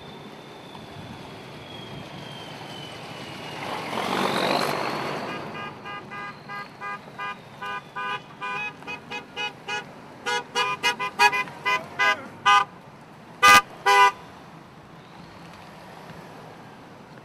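Vehicle horns honking from a passing motorcade: a long run of short toots, about two a second, growing louder, ending in two loudest blasts. Before the honking, a siren wails faintly and a vehicle passes by.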